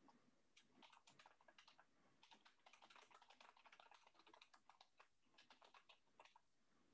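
Faint computer keyboard typing: quick, irregular runs of key clicks with short pauses between them.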